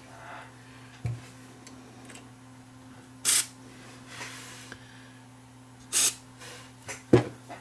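Aerosol contact cleaner sprayed through a thin extension straw onto the cassette-deck switches: two short hissing spurts about three seconds apart, with a fainter one between them, to clean dirty switch contacts. A sharp knock follows near the end.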